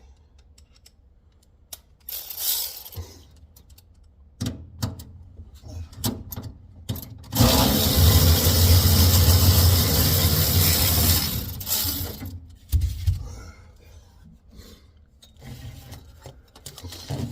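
Tool work on a Ford F100's steering column: scattered metal clicks and knocks, then about four seconds of loud continuous mechanical rattling near the middle, then more knocks.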